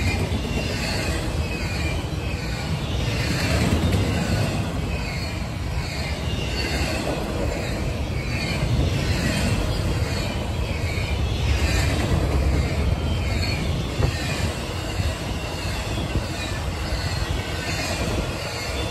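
Double-stack intermodal freight train's well cars rolling past close by: steady wheel-on-rail rumble from the passing train.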